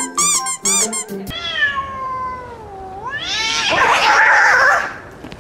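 Meowing: a few quick high meows, then one long meow that falls and rises in pitch, followed by a loud, harsh, noisy yowl.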